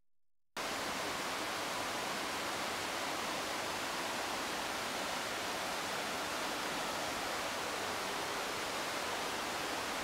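Waterfall rushing in a steady, even hiss that cuts in about half a second in.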